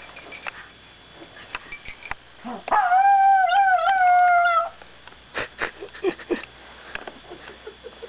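A papillon dog giving one drawn-out, wavering whine lasting about two seconds, starting a little under three seconds in, with a few faint clicks around it.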